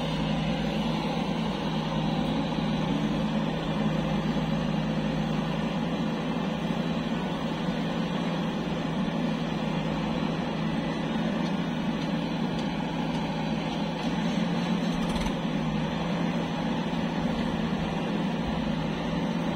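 JCB 3DX backhoe loader's diesel engine running at work, a steady, unchanging drone throughout.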